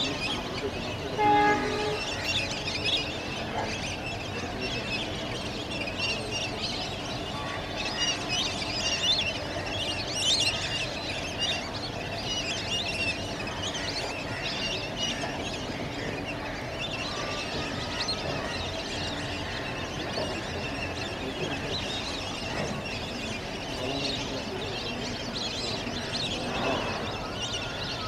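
Steady rumble of a passing train, with a brief horn-like tone about a second in, under many small high calls from a large flock of ducks on the lake.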